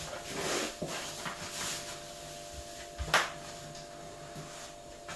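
A rubber-backed kitchen runner rug being straightened by hand on a laminate floor: soft rustling and rubbing, with a single sharp knock about three seconds in.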